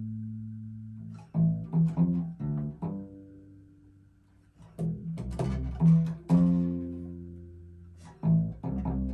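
Acoustic bass guitar being plucked: a low note rings out, then short phrases of plucked low notes. The phrases stop for about a second near the middle, and one long note is held before the playing resumes.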